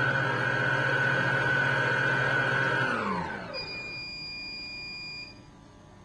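Cuisinart stand mixer running with its whisk attachment whipping cooked potatoes, a steady motor whine that winds down to a stop about three seconds in. A steady high electronic tone then sounds for nearly two seconds.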